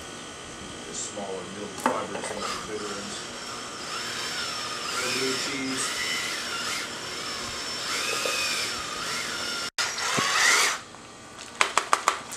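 Electric drill with a paddle mixer stirring a bucket of thickened polyester resin filler. The motor whine rises and falls as the trigger speed changes, then stops, and is followed near the end by quick clicks and knocks of the paddle against the bucket.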